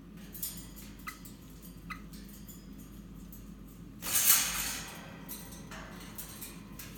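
Rosellas clambering on the cage wire: light clicks and scratches of claws and beak on the bars, with a loud rustle lasting about a second about four seconds in.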